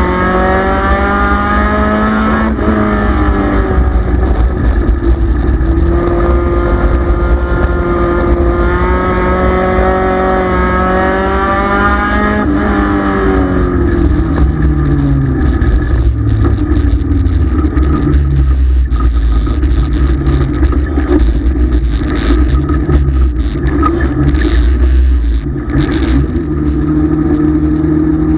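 Race car engine heard from inside the cockpit, running hard with its pitch rising and falling lap after lap. About thirteen seconds in the pitch drops away, and the engine then runs lower and more unevenly.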